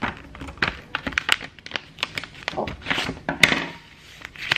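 A sheet of white paper being handled and folded flat on a countertop close to the microphone: rustling and crinkling with many sharp clicks and light knocks. The loudest rustle comes about three and a half seconds in.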